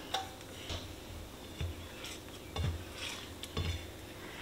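Silicone spatula stirring raw beaten eggs in a nonstick skillet: a handful of soft strokes, each a light scrape with a dull knock against the pan.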